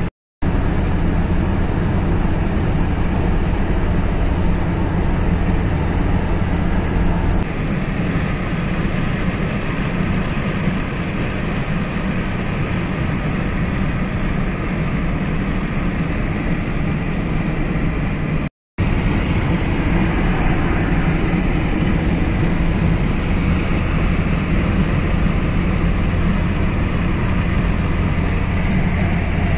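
Car driving at road speed: steady engine and tyre noise. It is broken twice by a brief dropout to silence, once just after the start and once about two thirds of the way through.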